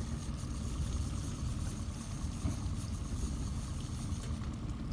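Boat motor running steadily at low speed, a continuous low rumble.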